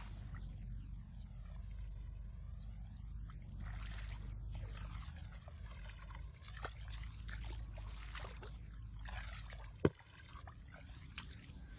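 Muddy ditch water sloshing and trickling over a steady low rumble, with scattered small clicks and one sharp knock about ten seconds in.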